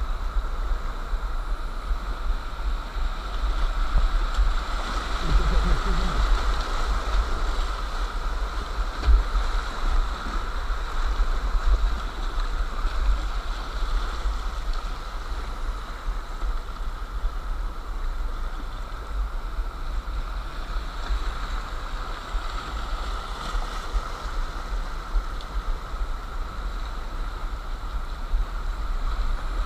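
Mountain river rapids rushing steadily around the kayak, recorded on an action camera, with a constant low rumble underneath.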